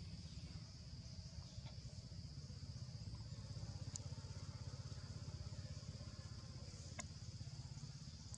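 Faint steady low rumble of a distant motor, over a steady high-pitched buzz of insects, with two light clicks about four and seven seconds in.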